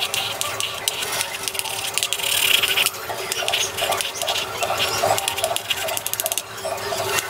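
Chalk tapping and scraping on a blackboard in quick dotting strokes, a rapid irregular run of sharp taps. It comes to a fast, dense burst of taps a little after six seconds in.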